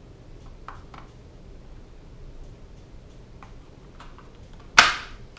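Light plastic clicks and taps from kit parts being handled and fitted in the headrail of a horizontal window blind, then one loud, sharp snap near the end that dies away quickly.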